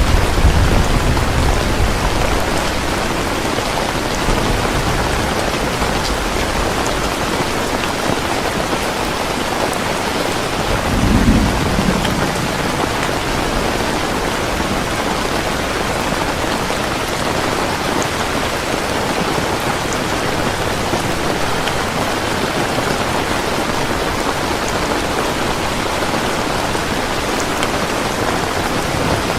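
Heavy rain falling steadily, a dense even hiss. Low rumbles of thunder come near the start and again about eleven seconds in.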